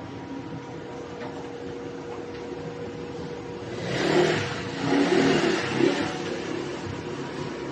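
Toyota Hiace's 2KD four-cylinder turbodiesel running through a newly fitted resonator and exhaust tip: a steady idle, then a few short revs around the middle before it settles back to idle.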